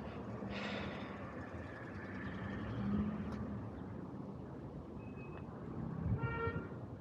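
City street traffic: a steady rumble of passing vehicles, with a short beep just after five seconds and a brief vehicle horn about six seconds in.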